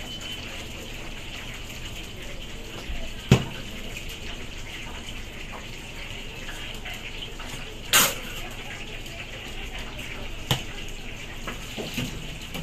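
A steady rushing hiss of kitchen background noise, broken by three sharp knocks about three, eight and ten and a half seconds in. The knock near eight seconds is the loudest and longest.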